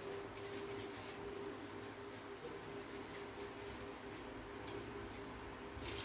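Faint, irregular wet squishing of raw minced-meat mixture being pinched off and rolled into balls by hand. A low steady hum runs underneath, and a brief click comes a little past the middle.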